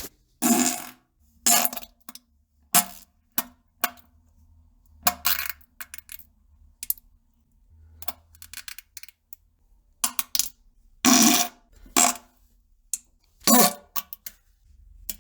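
A string of fart and plopping sounds: short, sudden bursts at uneven intervals, most brief and a few lasting about half a second.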